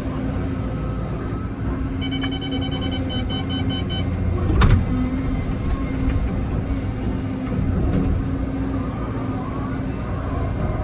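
Excavator's diesel engine and hydraulics running steadily while digging in mud. A single sharp clunk comes about four and a half seconds in. Just before it, a couple of seconds in, there is a short run of rapid high-pitched beeping.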